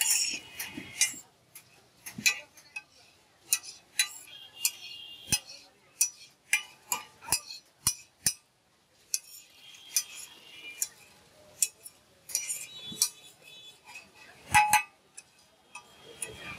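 Metal spatulas clinking, tapping and scraping on a large shallow metal griddle as pasta is stir-fried: quick, irregular sharp taps, some ringing briefly, with one louder ringing strike near the end.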